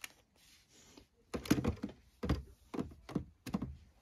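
A baby doll knocking against a toy bunk bed's ladder and frame as it is climbed down by hand: about five dull thunks, starting about a second and a half in.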